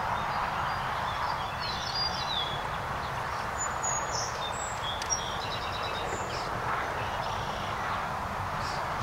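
Small birds chirping a few short calls over steady outdoor background noise, with one light tap about five seconds in.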